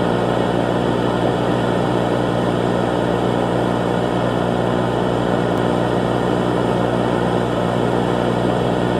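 A steady, unchanging droning hum with a hiss over it, holding one pitch throughout.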